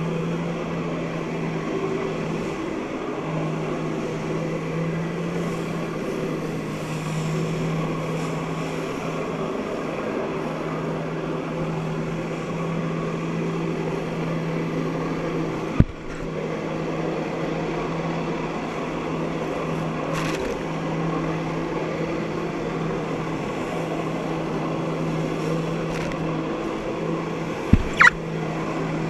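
Jet ski engine running steadily under load, driving the water jet that feeds a flyboard's hose, heard from on the craft as a steady drone over a rushing hiss of water. A sharp knock about sixteen seconds in and two more near the end, the last two as a finger knocks against the camera.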